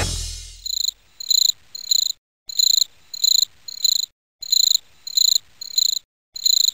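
Cricket chirping in a steady rhythm, about two short high chirps a second, after the last of the rock song dies away in the first half second.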